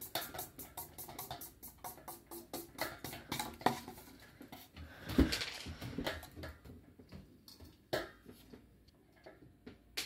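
A Colours Velva ceiling fan running on high, its blades making a rapid, regular whoosh of about seven pulses a second that fades away after a few seconds. A few scattered knocks follow, the strongest about halfway through.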